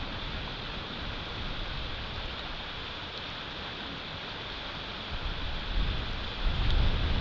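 Wind in a snowstorm hissing steadily through the nest cam's outdoor microphone, with low buffeting on the microphone that grows stronger and gustier in the last two seconds.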